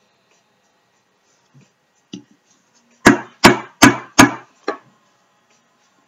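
Plastic deodorant tube full of soft homemade deodorant knocked four times in quick succession on a wooden tabletop, then once more lightly, to settle the mixture and knock out air bubbles.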